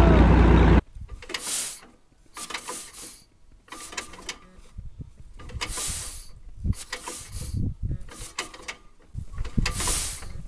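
A large old crawler tractor engine running, cut off abruptly under a second in; then a John Deere Model A two-cylinder tractor being started by hand-turning its flywheel, about seven short, noisy mechanical bursts a little over a second apart, with the engine not yet firing after sitting for months.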